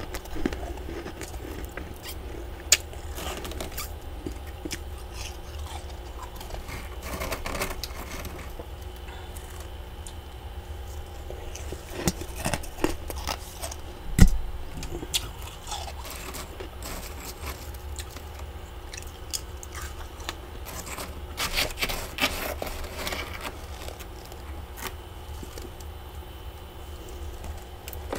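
Long acrylic fingernails scraping and crunching thick frost buildup inside a freezer compartment, in irregular bursts of crackly scratching, with a sharp knock about halfway through.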